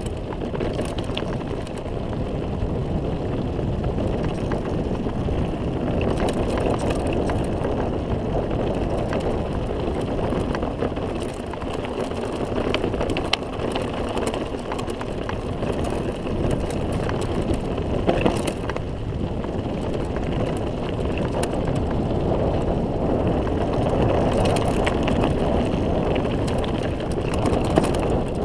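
Mountain bike rolling downhill on a dirt road: a steady rumble of knobby tyres on the dirt and gravel, with rattles and a few sharper knocks from the bike over bumps.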